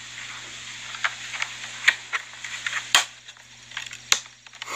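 Plastic CD jewel case clicking and tapping as it is handled and turned over, with four sharper clicks about a second apart and lighter ticks between, over a faint steady hum.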